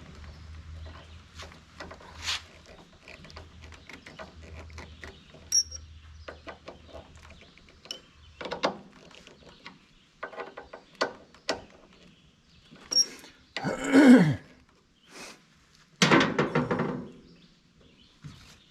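Scattered clicks, taps and knocks of hand tools and small mower parts being handled during reassembly. Near the end come two louder, longer noises, the first falling in pitch.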